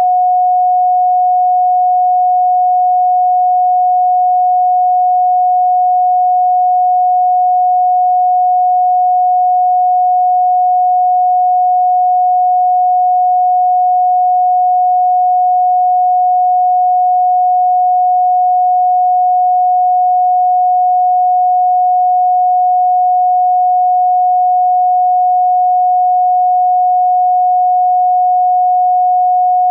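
A steady, pure electronic sine tone at about 728 Hz, holding one pitch and level throughout.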